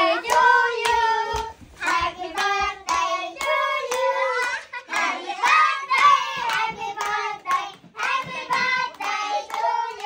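Several voices, a child's among them, singing a song together while hands clap along in time, about three claps a second.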